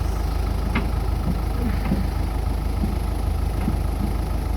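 Backhoe loader's diesel engine idling steadily, with a sharp metal clack about a second in as a pallet fork is slid along its hardened mounting shaft.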